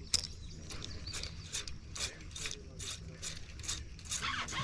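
Fishing reel being cranked to retrieve a lure, its gears ticking in a regular rhythm of about three clicks a second.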